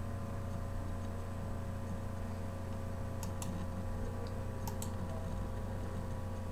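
Computer mouse clicking twice in quick pairs, about three and five seconds in, over a steady low electrical hum.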